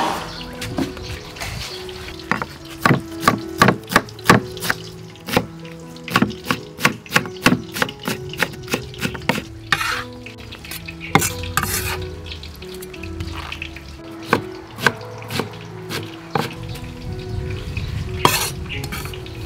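Kitchen knife chopping greens on a wooden cutting board: a quick run of sharp knife strikes, a few a second, thinning out later, over soft background music.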